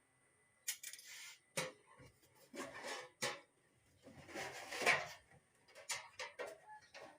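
Irregular clicks, knocks and short scrapes of hands and tools opening up the casing of an amplifier that no longer works.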